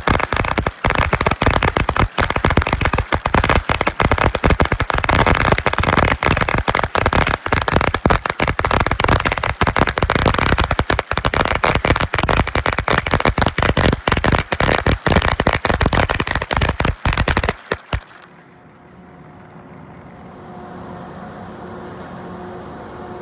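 A long string of firecrackers going off in a rapid, continuous string of loud bangs and crackles, which stops suddenly about eighteen seconds in. It is followed by a much quieter steady mechanical hum from the arriving ferry.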